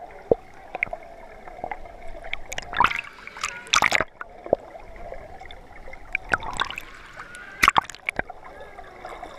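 Pool water gurgling and sloshing, heard muffled through a submerged camera, with a few short, sharp noises about three, four, six and a half and nearly eight seconds in.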